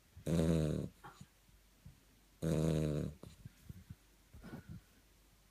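A dog snoring: two long snores, each just under a second and about two seconds apart, with quieter breath noises between them and a third snore starting at the very end.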